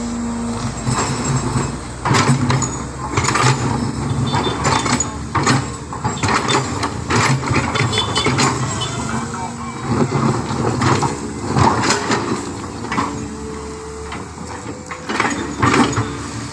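Truck engine running, with irregular clanks and knocks through it.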